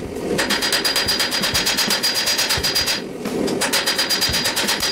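Hand hammer striking a red-hot twisted railroad spike on an anvil: rapid, even blows, several a second, each with a high ring from the anvil. The hammering stops briefly a little after three seconds, then starts again.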